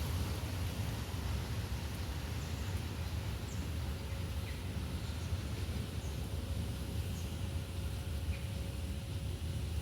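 Faint, short, high bird chirps scattered about once a second over a steady low rumble, with a faint steady hum starting about halfway.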